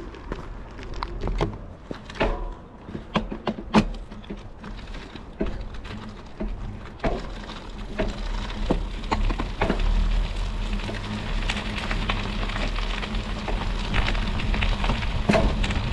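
Studded bicycle tyre rolling over pavement: the metal studs make a crackling, pattering hiss. Scattered sharp clicks and knocks come first, and the crackle grows denser and louder from about eight seconds in.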